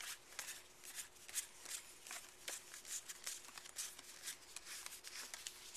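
World of Warcraft trading cards handled by hand, a run of irregular soft flicks and rustles as cards from a booster pack are slid and flipped one after another.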